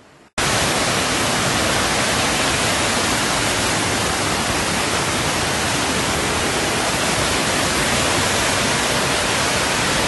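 Rushing floodwater churning past: a loud, even rush of noise that starts abruptly a moment in and holds steady.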